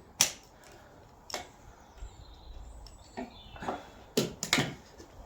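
Sharp knocks and clatter of hand tools and parts being handled while brake calipers are taken off an axle: one loud knock about a quarter second in, another a second later, then a quick run of knocks between about three and five seconds in.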